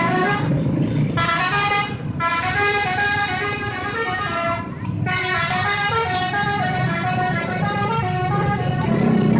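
Indonesian bus 'telolet' horn, a multi-tone musical horn playing a tune of quick stepped notes. It breaks off briefly three times: about half a second in, two seconds in and five seconds in.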